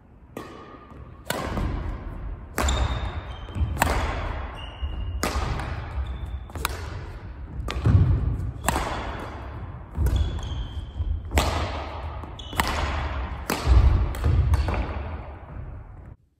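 Badminton rackets striking a shuttlecock back and forth in a singles rally: a sharp crack about every second and a half, each ringing on in a large gym hall, with thudding footsteps and short shoe squeaks on the wooden court floor. The sound cuts off suddenly near the end.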